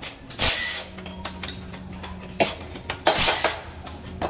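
Metal tools and engine parts clinking and scraping as they are handled, with two short scraping rushes, one about half a second in and one just after three seconds, and a sharp clink between them.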